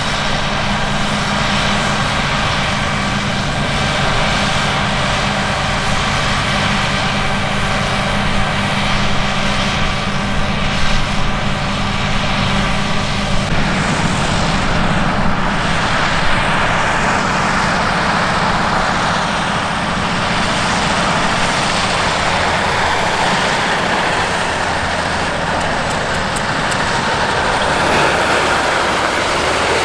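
Heavy diesel farm machinery running steadily under load, with a steady engine note that gives way about halfway through to a louder, rushing mechanical noise.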